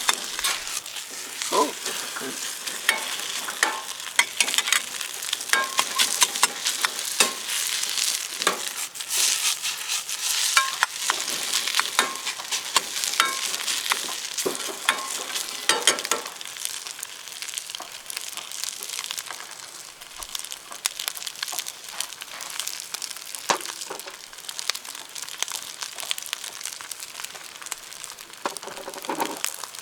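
Fried rice sizzling in a Uniflame camp wok over a campfire as it is stir-fried, the spatula scraping and clicking against the pan. The scraping thins out about halfway through, leaving mostly the sizzle.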